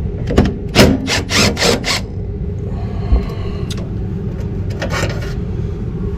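Scraping and rubbing noises from hands and tools working on a gas furnace's burner assembly, as the flame sensor is taken out: a quick run of short scrapes in the first two seconds and another near the end, over a steady low rumble.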